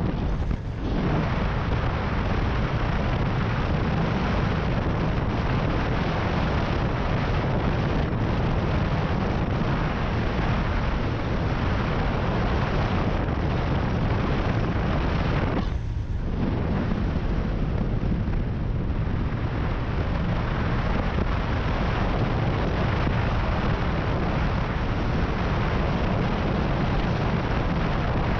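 A motorcycle riding at road speed, its engine and tyre noise heard under heavy wind on the microphone. The sound is a steady, dense rush, strongest in the low end, that thins briefly about half a second in and again around sixteen seconds.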